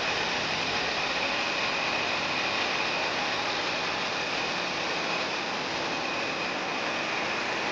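Steady mechanical running noise: an even hiss with a faint high whine held at one pitch, unchanging throughout.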